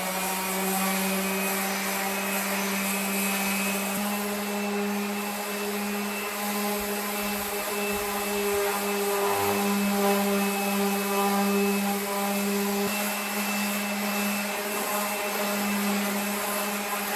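Corded orbital sander running at a steady speed, its motor humming over the rasp of the sanding disc. It is sanding paint off a body panel.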